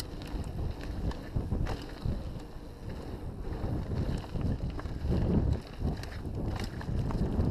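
Wind buffeting the microphone of a point-of-view camera on a mountain bike descending a dirt trail at speed, over the rumble of knobby tyres on dirt, with scattered clicks and rattles from the bike over bumps.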